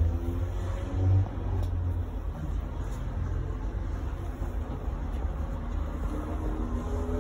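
Tatra T6B5SU tram running, heard from inside the passenger saloon: a steady low rumble from the wheels on the rails, with a low thud about a second in. Near the end a motor whine rises in pitch as the tram picks up speed.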